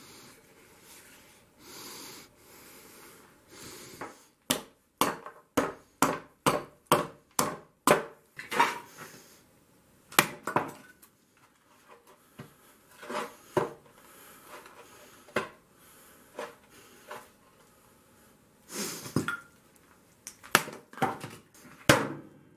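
Cast aluminum-bronze hatchet head chopping into wood: a fast run of about a dozen sharp strikes, about three a second, starting a few seconds in, then slower single chops and a few closely spaced pairs.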